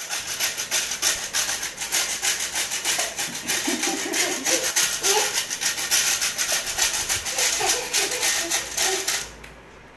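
A funny sound clip played for a child to dance to: a loud, scratchy, rapidly repeating rasping noise with faint voices under it. It stops about nine seconds in.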